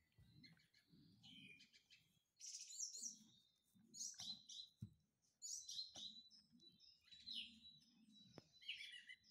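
Faint birds chirping, short repeated calls in clusters, with a few soft clicks in between.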